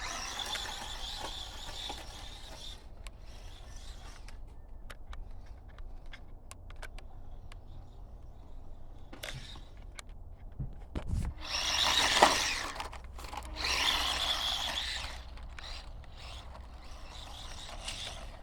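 Small electric 1:18 scale RC truck driving over rough ground: its motor and gears whine in spurts as it speeds up, loudest about twelve seconds in, with many short clicks and knocks from the chassis and wheels.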